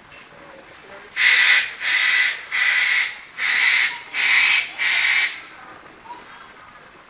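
An animal calling: six harsh, hissing calls in an even series, a little under a second apart.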